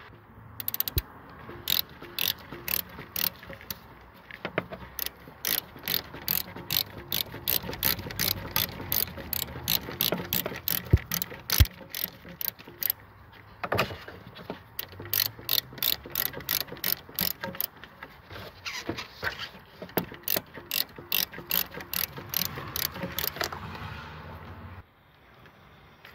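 Ratchet wrench clicking on a deep socket as it unscrews the engine coolant temperature sensor from the thermostat housing: sharp clicks at about three a second in several runs, stopping about a second before the end.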